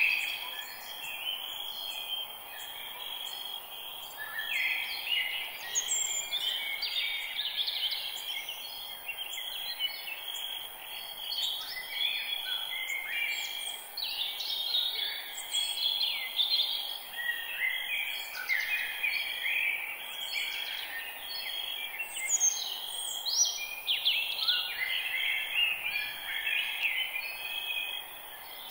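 Forest birds singing in a dense chorus of many overlapping chirps, whistles and trills.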